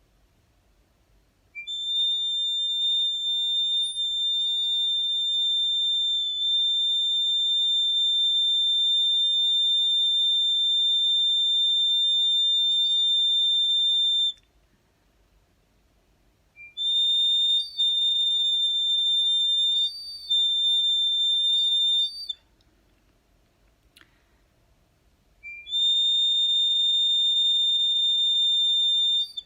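Handmade flute played in three long, very high, steady held notes. Each note starts with a short lower note that steps up to the main pitch. The middle note wavers briefly partway through.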